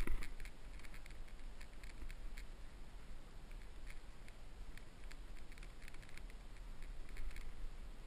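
Light clicking and rustling of a compound bow and its camouflage stalker decoy being carried, with a steady low wind rumble on the bow-mounted camera's microphone. There is one louder knock right at the start.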